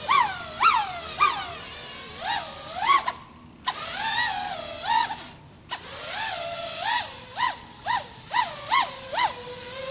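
Brushless motors of a 6S FPV racing quadcopter (iFlight XING 2207 1800kv) whining through a series of quick throttle punches, the pitch swinging sharply up and back down with each one. The sound nearly cuts out twice, at about three and five and a half seconds in, when the throttle is pulled right off.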